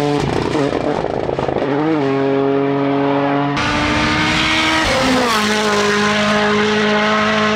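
Rally car engines at high revs through corners, running at a high held pitch with sudden steps in pitch at gear changes, one car after another; the sound changes abruptly a little over three seconds in as a second car takes over.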